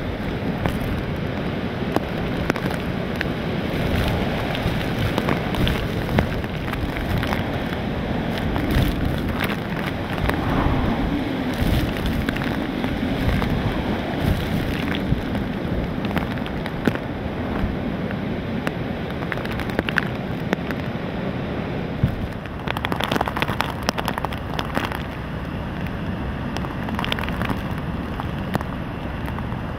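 Hurricane wind and wind-driven rain: a loud, steady rush with frequent sharp cracks of gusts buffeting the microphone.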